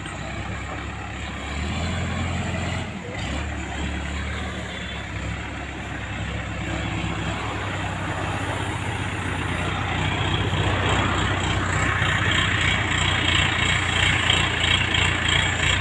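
Diesel engine of an ACE mobile crane running steadily close by, growing louder over the second half.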